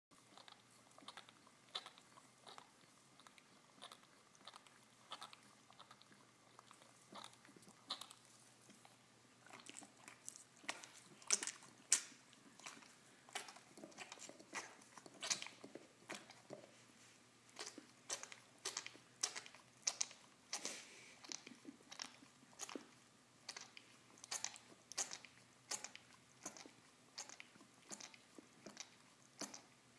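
Beagle gnawing on a cheese-filled bone, working to get the cheese out: an irregular run of crunching, clicking chews, a few a second, getting busier and louder from about a third of the way in.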